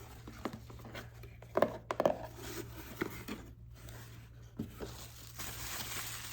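Fingers tapping on the unboxed gift box for ASMR: a handful of separate taps and knocks, then, about five seconds in, a steady scratching or rubbing on its surface.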